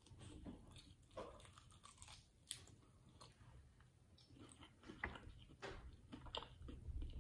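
Faint biting and chewing of a crispy fried chicken drumstick: soft, scattered crunches of the breading, coming more often in the second half.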